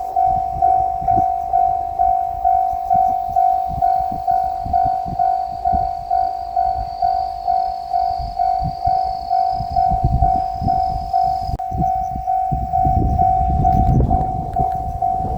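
Japanese level-crossing electronic warning bell (the "kan-kan" alarm) ringing steadily at about two strokes a second. From about 12 seconds in, a low rumble grows under it as a JR Shikoku 7200 series electric train draws near.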